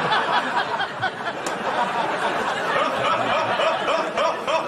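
Laughter: a man laughing heartily over a crowd laughing, many voices overlapping without a break.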